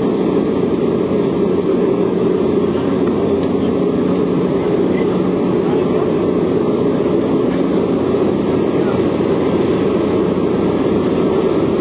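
Skydiving jump plane's engine running steadily, a loud, even drone heard from inside the crowded cabin.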